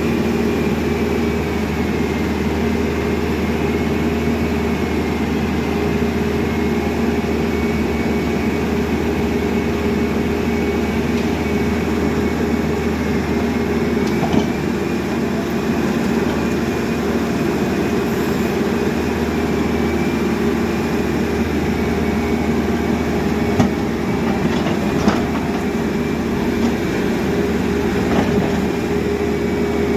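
Caterpillar backhoe loader's diesel engine running steadily under work, with a faint high whine over the engine note and a few short knocks about halfway through and later on.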